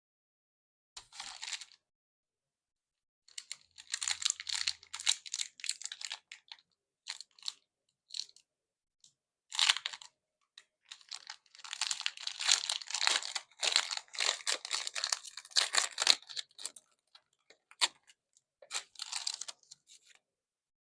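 Plastic and foil packaging of a Pokémon card collection box crinkling and tearing by hand, in bursts with short pauses, the busiest stretch about halfway through.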